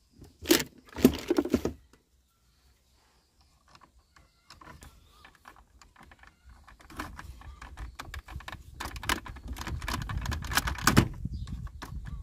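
Clicks and taps of a thin metal pick tool working at the plastic wiring connector of the blower-speed switch. There are a few sharp clicks in the first two seconds, a pause, then a busy run of light clicks and scrapes over handling noise.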